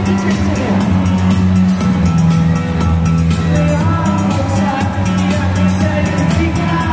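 Live band playing electronic-leaning rock through a loud concert PA, with guitars and keyboards over a steady, sustained bass line and drums keeping a fast, even beat.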